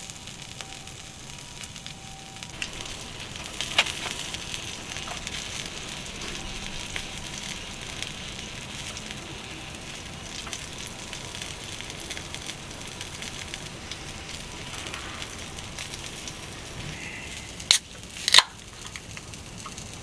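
Wood campfire burning with a steady hiss and scattered crackles and pops, one sharper crack about four seconds in, and two loud sharp sounds close together near the end.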